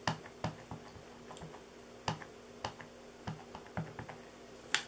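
A rubber stamp on a clear acrylic block tapped repeatedly onto an ink pad to ink it: about nine light, irregular plastic taps and clicks, the loudest one near the end.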